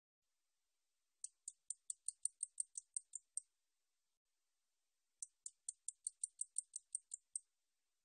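Song of the 날베짱이 katydid: two runs of about a dozen sharp, high ticks at about five a second. Each run lasts about two seconds, with a pause of about two seconds between them.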